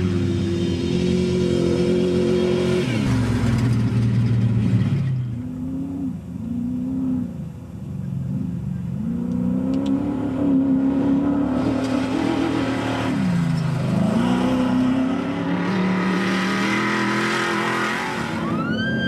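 Off-road desert race trucks' engines running hard. One truck's engine note drops in pitch as it goes past about three seconds in, then the engine pitch rises and falls repeatedly with the throttle.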